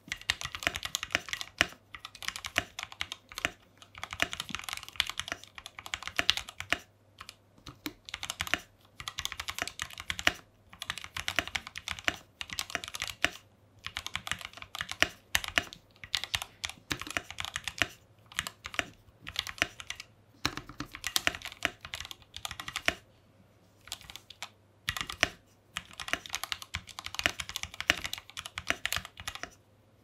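Typing on a custom 96% mechanical keyboard with Gateron Ink V2 Black linear switches lubed with Krytox 205 G0, an aluminium plate and white PBT keycaps. Fast runs of keystrokes come in bursts of a few seconds, broken by short pauses.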